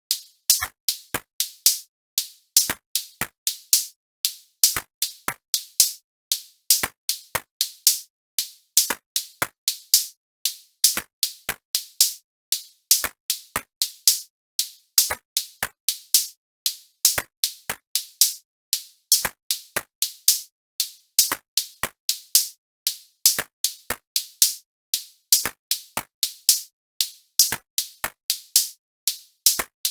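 Background music: a dry electronic drum-machine beat of sharp, clicky hits, several a second, in a short pattern that loops about every two seconds.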